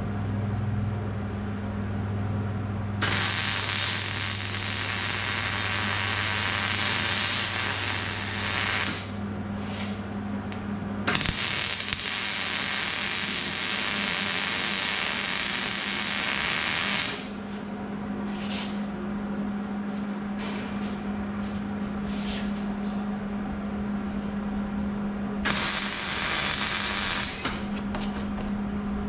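Electric arc welder welding a thick steel chain-link ring onto thin steel tubing: the arc crackles and hisses in three runs, two of about six seconds and a shorter one near the end, with brief tack bursts in between. A steady low hum runs under it.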